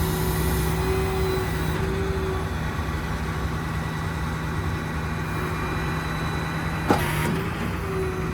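Ford 6.4 Power Stroke V8 diesel running steadily, driving the hydraulics of the truck-mounted crane as the boom lowers. A single sharp knock comes near the end.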